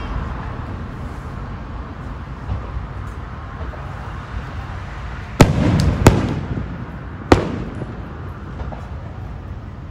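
Aerial firework shells bursting: a fading rumble, then three sharp bangs a little past halfway, the first two under a second apart, each followed by a rolling rumble.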